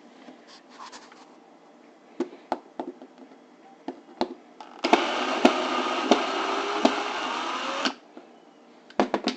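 Power drill-driver running for about three seconds, backing out a screw that holds the dishwasher in place, with a slight rise in pitch. Clicks and knocks of handling tools and parts come before and after it.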